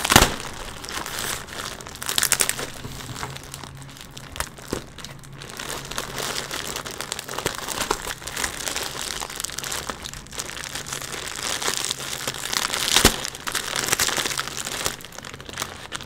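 Plastic shipping bag crinkling and rustling as it is handled and cut open with scissors, with a couple of sharp clicks.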